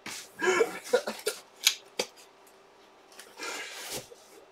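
A cardboard box being handled and slid across a tabletop: a few light taps and clicks, a sharp knock about two seconds in, then a short scraping rustle near the end.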